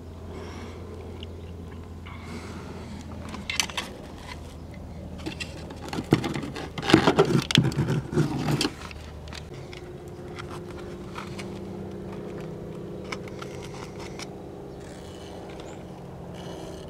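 Fuel pump sending unit's metal fuel lines and float arm scraping and clattering against the fuel tank opening as the assembly is worked out by hand. Scattered clicks at first, then a burst of loud scraping and knocking for a couple of seconds in the middle.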